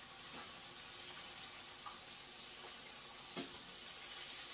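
Chicken tenders frying in a skillet of hot oil, a steady faint sizzle, with a light knock about three and a half seconds in.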